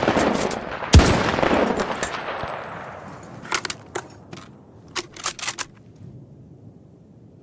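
M24 bolt-action sniper rifle firing one shot about a second in, with a long echoing tail. A few sharp clicks in two quick groups follow as the bolt is worked.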